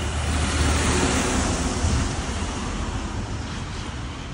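A vehicle passing by, its tyre hiss swelling over the first second or two and then fading, over a steady low rumble of wind on the microphone.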